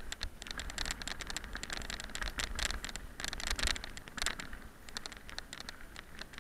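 Bicycle tyres crunching over a loose gravel track: a dense, irregular crackling and rattling, with a steady low rumble of wind on the microphone underneath.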